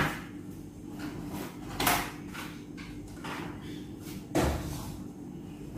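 Kitchen items being handled at a cupboard and counter: a few light clicks and knocks, with two louder knocks about two seconds and four and a half seconds in.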